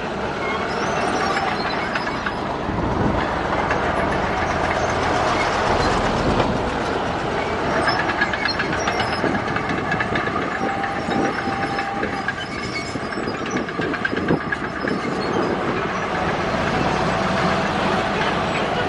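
Crawler bulldozer working: the diesel engine runs steadily while the steel tracks clank and squeal.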